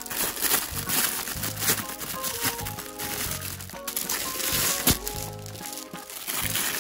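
Clear plastic wrapping on a rolled desk mat crinkling and crackling irregularly as it is handled and pulled off, over background music.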